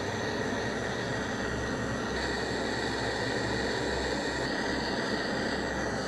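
A power tool running steadily with a dense, hissing machine noise.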